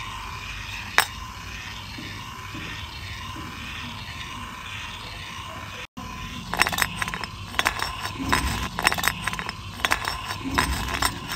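Miniature toy cement mixer's small motor running as the drum turns, with one sharp click about a second in. From about six seconds in, rapid clicking and clinking as small toy kitchen-set pieces tumble and rattle inside the turning drum.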